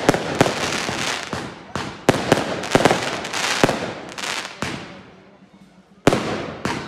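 Aerial firework shells bursting in quick succession: sharp bangs over a dense crackle. It eases off about five seconds in, then one more loud bang near the end.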